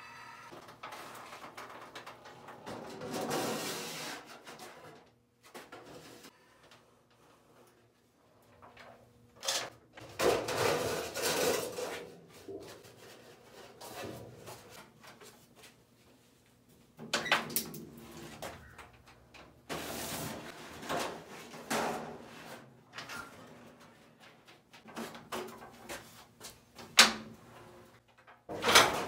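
Aluminum trim coil being worked on a sheet-metal brake: the thin sheet slides, rattles and flexes in bursts of a second or two, while the brake's clamp handle and bending leaf clank. Several sharp knocks come through, the loudest near the end.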